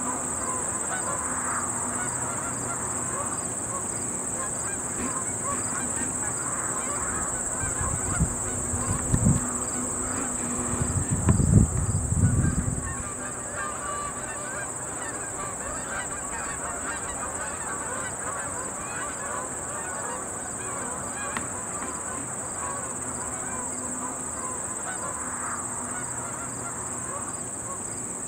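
A large flock of geese honking continuously, many calls overlapping, with a steady high insect drone underneath. A few seconds of low rumbling, like wind on the microphone, come near the middle.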